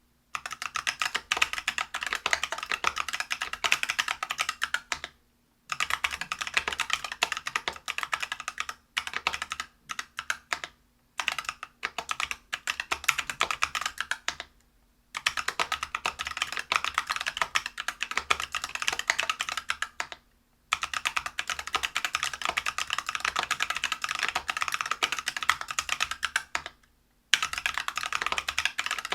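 Typing on a Whale 75 mechanical keyboard with stock, unlubricated Neapolitan Ice Cream 63.5 g tactile switches, brass plate and PBT keycaps: fast, continuous runs of keystrokes broken by several brief pauses.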